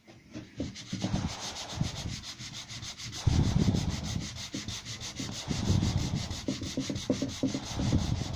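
Hand sanding block with a mesh abrasive face rubbed back and forth in quick strokes over the sprayed paint on a plywood panel, flatting down a blemish. The strokes start light and get louder about three seconds in.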